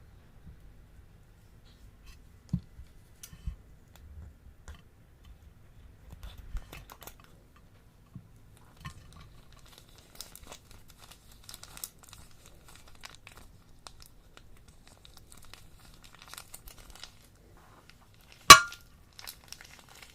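Slime being handled, with scattered soft crackles and small clicks, a few low squishy thuds early on, and one sharp, loud pop near the end.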